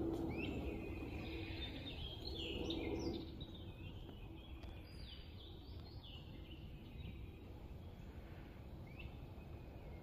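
Small birds chirping in the background: a run of short, quick, falling notes through the first half and a few more near the end. Under them is a low steady hum that fades out about three seconds in.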